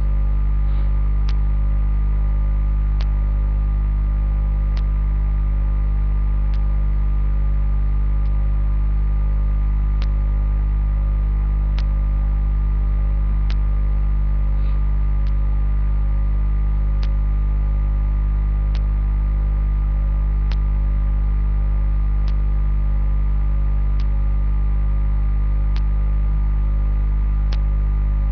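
Loud, steady electrical mains hum with its stack of overtones, picked up by the recording, with a short sharp click repeating about every second and three quarters.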